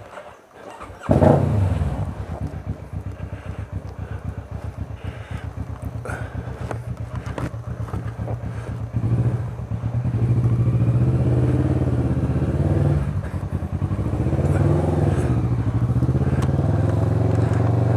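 Motorcycle engine starting about a second in and running with an even pulsing beat. From about nine seconds in it gets louder and its pitch rises and falls as the bike rides off.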